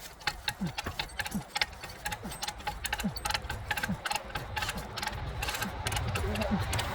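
Metal ratchet clicking in quick irregular runs, with a short falling squeak every half second or so, and a low rumble building up near the end.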